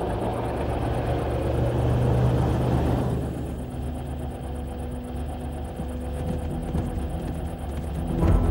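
Cars driving on a dirt road: a steady engine rumble with road and tyre noise that eases after about three seconds into a quieter, steadier hum.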